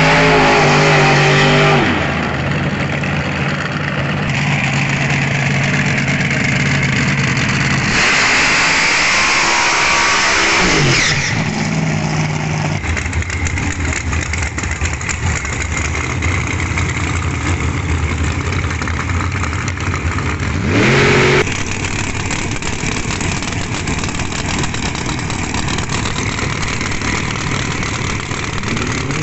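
Competition drag car engines, loud throughout. An engine runs hard for about the first two seconds, then the sound settles into a rough idle, broken by a few sharp revs whose pitch climbs and drops.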